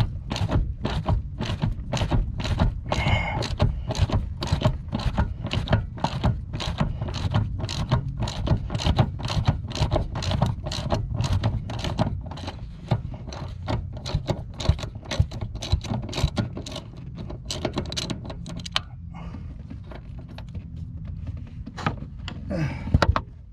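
Ratchet wrench clicking in a steady rhythm of quick strokes as a door hinge bolt is backed out. The clicking stops about three-quarters of the way through, with a few more clicks near the end as the bolt comes free.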